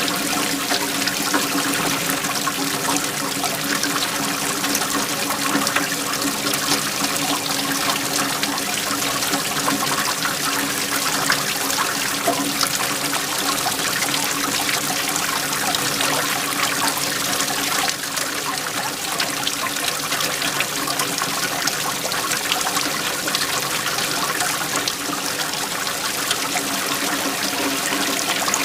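Waterfall: a steady, loud rush of falling water that keeps an even level throughout.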